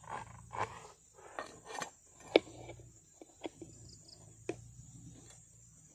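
Light knocks and clinks of metal parts as an oil filter element is fitted onto its centre bolt and into a steel filter bowl, the sharpest clink about two and a half seconds in. A steady high insect chirr runs behind.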